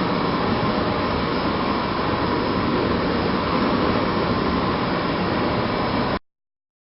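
Two-line plastic bag cutting machine running steadily, a dense mechanical noise with a faint steady tone, cutting off abruptly about six seconds in.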